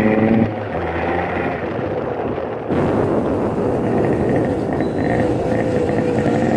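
Honda CD 100 single-cylinder motorcycle engine running on the move, with wind noise. It gets louder about two and a half seconds in.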